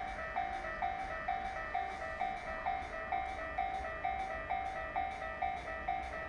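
Japanese railway level-crossing warning alarm ringing, an even clang repeated about twice a second.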